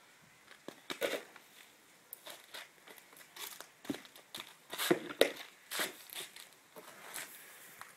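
Irregular rustles, scuffs and light knocks: a toddler's shoes scuffing on paving stones and a plastic toy bucket being picked up and handled.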